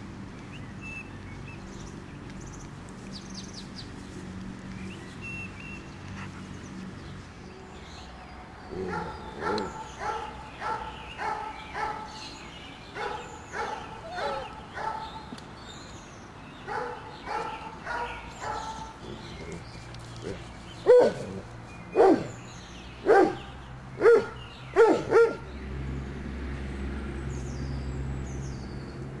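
Five-week-old Doberman puppies yapping in runs of short, high barks, about two a second, starting about a third of the way in. Near the end come five louder barks.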